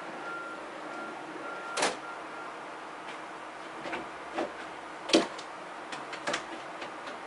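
A handful of short, sharp clicks and knocks at irregular intervals over a steady background hiss; the loudest comes a little after the midpoint.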